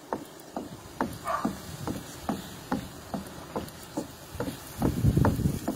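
Trainers landing on a wooden deck in steady rhythmic jumps, about two to three thuds a second, as feet switch front and back in split jumps. A louder low rushing noise comes in for about a second near the end.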